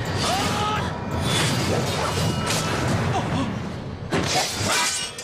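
Sword-fight sound effects: blades swishing and clashing again and again over background music.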